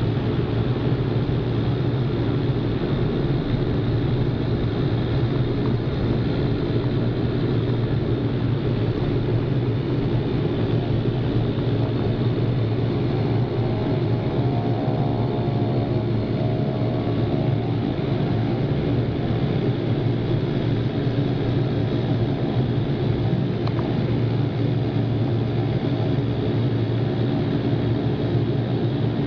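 Cessna Conquest's twin turboprop engines heard from inside the cabin: a steady engine and propeller drone.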